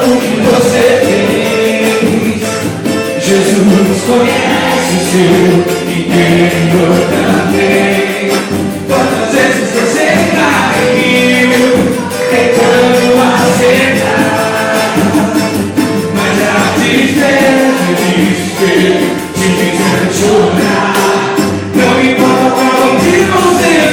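Samba group playing a gospel samba, with voices singing together over fast hand percussion.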